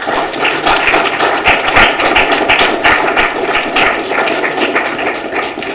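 Audience applauding, dense and steady clapping that is louder than the speech before it.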